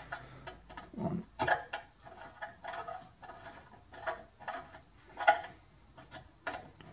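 Stainless boiler stay being screwed by hand into a freshly tapped hole in a stainless steel boiler wrapper: irregular metallic ticks and scrapes as the threads catch and grate, with one sharper click about five seconds in. The fit is tight, the stainless threads close to galling.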